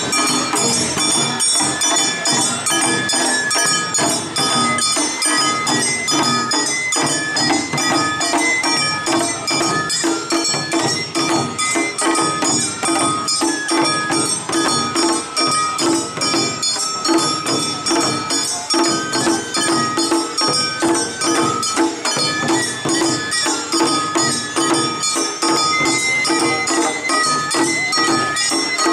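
An Awa odori festival band playing a fast, driving rhythm: a rope-tensioned shime-daiko and larger taiko drums beaten with sticks, with metallic clanging and a high melody line over the drums.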